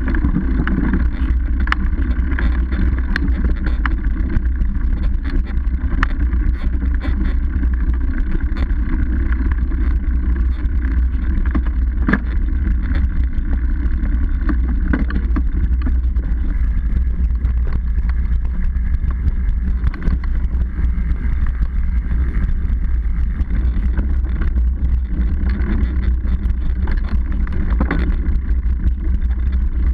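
Mountain bike riding over a rough dirt trail, heard through a seatpost-mounted action camera: a steady, loud low rumble of vibration and tyre noise, with scattered knocks and rattles from bumps.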